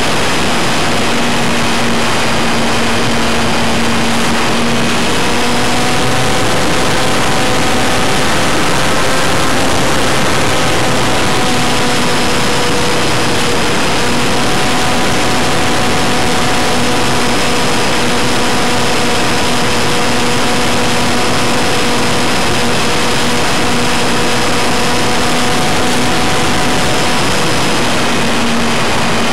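Electric motor and propeller of a ParkZone F4U Corsair RC airplane running in flight, heard from a camera on the plane: a steady motor whine over a loud rush of air. The whine's pitch shifts a little midway through.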